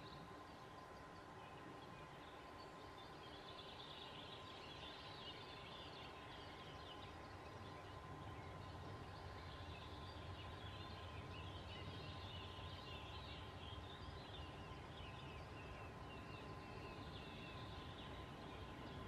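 Small birds twittering over faint outdoor ambience, with a faint steady high tone throughout and a low rumble that slowly grows louder through the second half.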